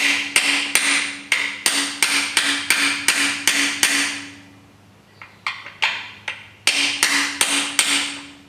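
Hammer blows on a socket used as a driver, seating a freeze plug into a Chrysler 440 big-block's cast-iron block. There are two quick runs of about three strikes a second, with a few lighter taps between them, and each run leaves a short metallic ring.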